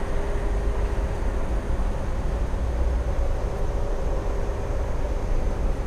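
Steady low rumble with a faint continuous hum, even throughout, with no distinct events.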